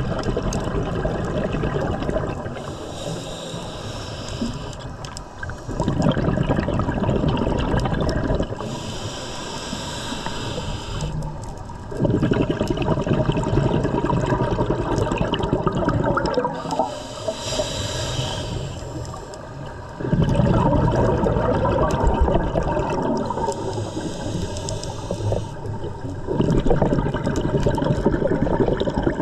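Scuba diver breathing underwater through a regulator: about four slow breaths, each a hissing inhale followed by a longer, louder gush of exhaled bubbles.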